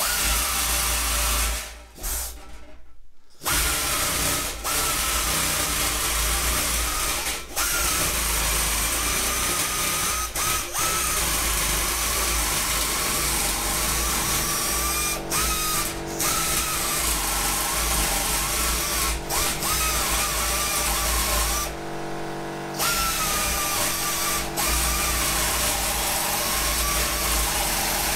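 Pneumatic nibbler running and punching its way through sheet-metal plate to cut out a round shim, a continuous chattering noise with a wavering whine. It stops briefly twice near the start and for about a second past the two-thirds mark.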